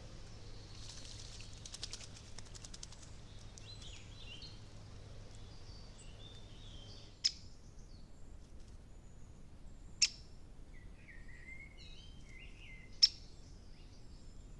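Small songbirds calling and singing around a woodland pond: a rapid high trill early on, then short chirped phrases, with three sharp loud clicks about three seconds apart.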